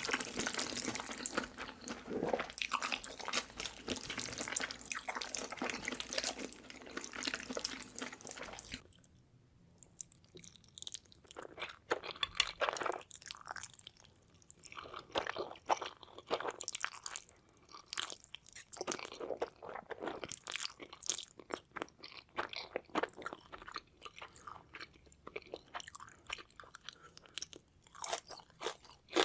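Close-miked chewing and crunching of Korean spicy noodles, mouth sounds clicking densely for about the first nine seconds, then coming in sparser bites with short pauses between.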